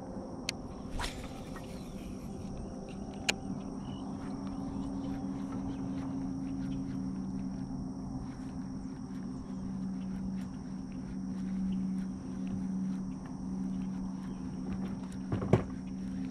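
Electric trolling motor humming steadily as a bass boat creeps along the shore, swelling somewhat past the middle. A few sharp knocks and clicks sound on the boat, the loudest near the end.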